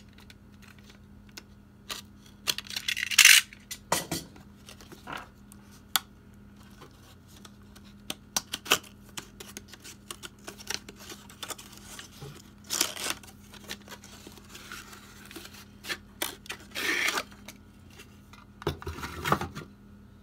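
Plastic packaging of a diecast model truck being handled and turned in the hands: scattered light clicks and taps with a few short crinkling scrapes.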